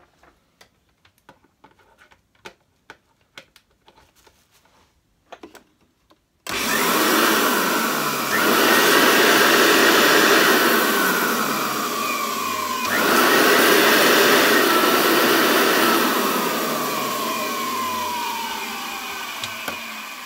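Faint clicks of handling, then the motor of a Hoover Turbo Power upright vacuum, with its hood off, switches on abruptly about six seconds in and runs loudly. Its whine slides down in pitch and jumps back up twice, and it eases off a little toward the end.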